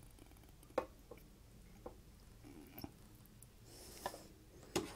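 Spatula scooping saucy pasta out of a frying pan into a plastic container: a handful of faint, sharp clicks and knocks against the pan and container, with a brief scrape just before the end.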